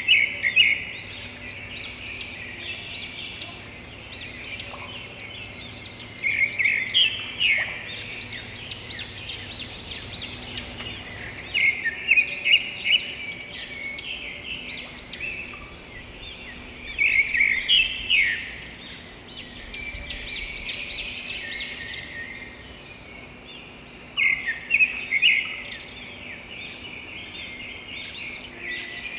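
Many small birds chirping and twittering in a dense chorus, swelling into louder bursts every five or six seconds.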